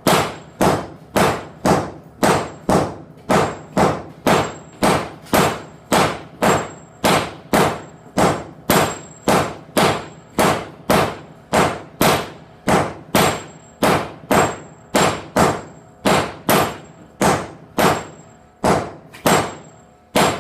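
Team striking on hot steel over an anvil: hammer blows falling in a steady, even rhythm of about two a second, each a sharp metallic strike with a short ring, while forging a cupping tool.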